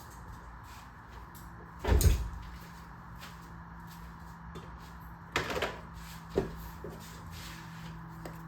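A few sharp clunks and knocks of metal tools and brake parts being handled while a brake caliper's line and banjo bolt are fitted, the loudest about two seconds in and a short cluster past the middle, over a steady low hum.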